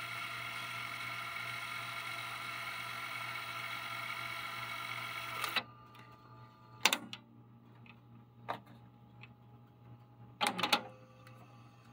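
Luxman K-220 cassette deck in fast rewind, the tape transport whirring steadily. About five and a half seconds in it stops with a click. Then come a few sharp clicks of the deck's transport keys, the loudest a double click near the end.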